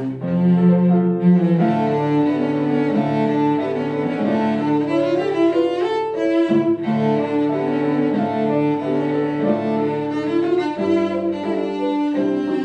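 A cello played with the bow, accompanied by a piano: a continuous passage of bowed notes over the piano part.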